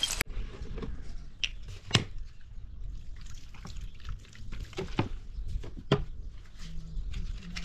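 Liquid poured from a plastic bottle onto a heap of charcoal lumps, dribbling and dripping, with scattered sharp clicks and taps, the loudest about two and six seconds in.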